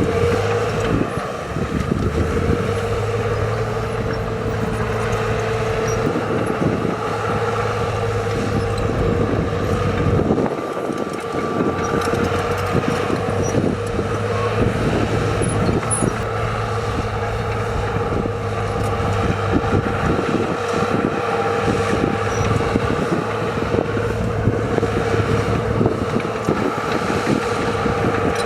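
Heavy diesel earthmoving machinery running steadily under load, with a dense clatter of knocks over the engine note.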